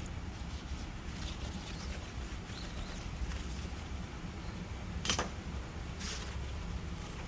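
Steady low hum of running shop equipment, with a sharp click about five seconds in and a softer click a second later.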